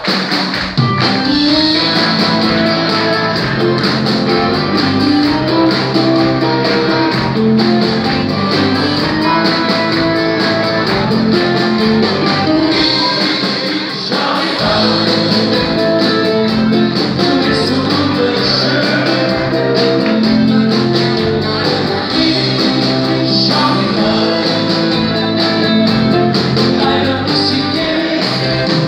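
Live rock band playing: electric guitars, keyboard and drum kit, with singing.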